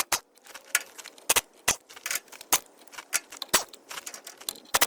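Sharp metal clicks and clinks at an irregular pace, a few a second, as the wheel nuts are worked off the studs of a five-spoke Dayton cast-iron wheel hub and handled.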